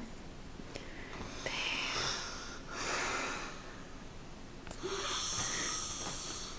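A woman snoring in her sleep: three noisy, hissing breaths, a long one, a shorter one right after it, and another long one near the end.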